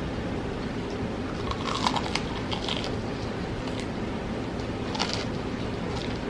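Close-miked eating of fried food: crunchy bites and chewing, with a cluster of crisp crunches about two seconds in and a few more later, over a steady low hiss.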